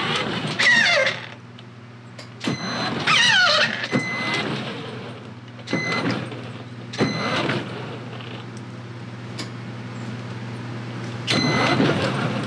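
Kids' electric ride-on truck's motors whirring in several short runs, with a few short high beeps.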